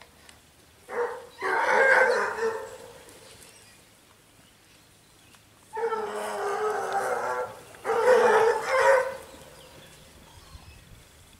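A pack of scent hounds baying in overlapping voices as they work a hare's scent line. It comes in two bouts, one about a second in lasting under two seconds, and a longer one from about six to nine seconds.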